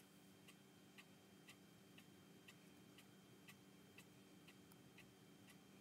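A clock ticking faintly and evenly, about two ticks a second, over a low steady hum.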